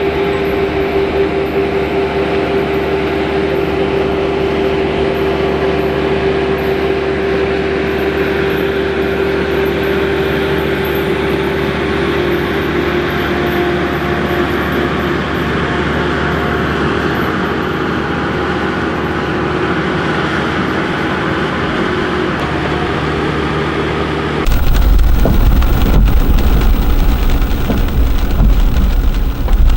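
An engine running at a steady pitch with a held whine. About 25 seconds in it cuts abruptly to steady rain with a loud low rumble.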